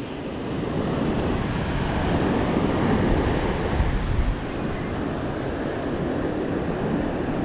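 Surf washing onto a sandy beach, with wind rumbling on the microphone, heaviest about three to four seconds in.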